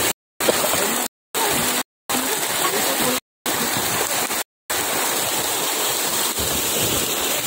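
Dense mass of harvested fish thrashing and splashing in a crowded net, a steady churning rush of water. The sound drops out completely for a moment five times in the first five seconds.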